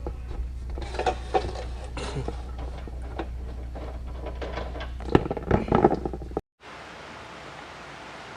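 Light clicks, knocks and metallic clinks of tools and parts being handled during an oil change, over a low steady hum. About six seconds in, the sound cuts to a steady hiss.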